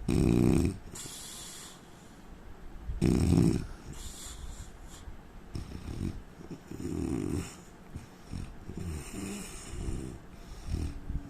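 A man snoring in his sleep: two loud snores about three seconds apart, then quieter, uneven breaths through the rest.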